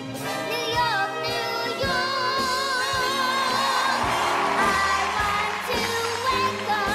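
A young girl singing with a heavy, wobbling vibrato over a pop backing track with a beat.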